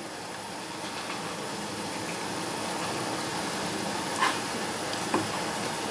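Steady background hiss, with a brief soft handling sound about four seconds in as hands move raw quail in a ceramic bowl.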